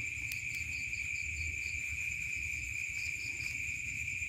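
Crickets trilling in a steady, high, continuous chorus, with a faint low rumble beneath.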